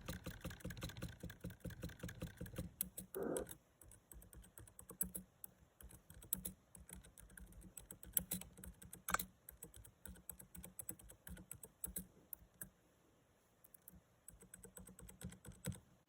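Faint, irregular light clicking and tapping, denser in the first few seconds, with one sharper click about nine seconds in.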